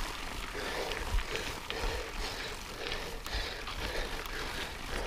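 Mountain bike rolling along a loose dirt and gravel trail: steady tyre noise with scattered small ticks and rattles, and a low rumble on the camera microphone.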